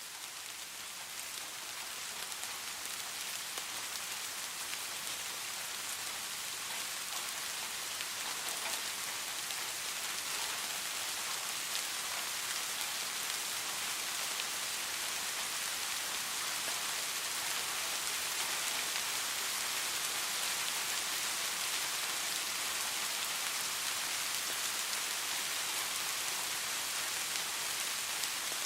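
Steady rain falling, an even hiss with scattered drop ticks, swelling gently over the first few seconds and then holding steady.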